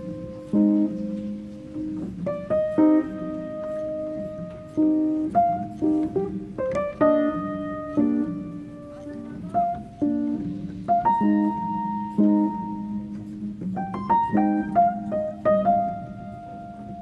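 Instrumental background music: a slow melody of single notes, changing about every second, over held lower chords.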